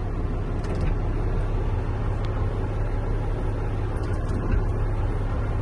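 Diesel truck engine idling steadily in the cab, with a few faint ticks as the windshield wipers run.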